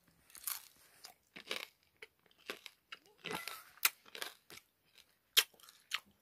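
A person biting into and chewing a crisp piece of fried rabbit meat close to the microphone: a string of irregular crunches.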